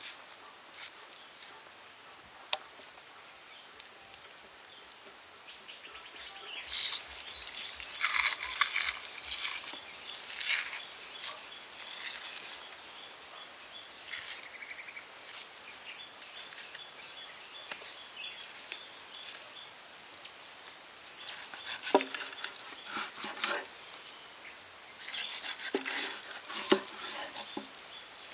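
Cleaver cutting raw pork ribs on a wooden board: scattered knocks and scrapes, with a dense run about a third of the way in and another cluster of sharper knocks near the end, over a faint outdoor background.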